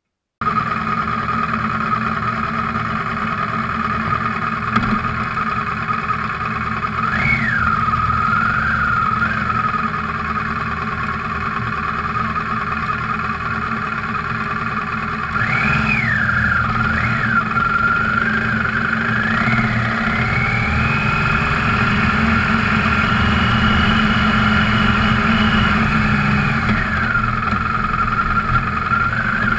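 Adventure motorcycle engine running while riding along a dirt track. Its pitch rises and falls with the throttle: short climbs about a third and halfway through, then a long rise held for several seconds before dropping back near the end.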